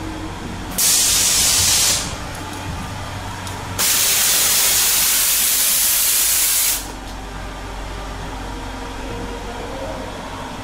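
Two loud hissing blasts of pressurised air, the first about a second long and the second about three seconds, of the kind a haunted-house scare effect lets off, over a steady low hum.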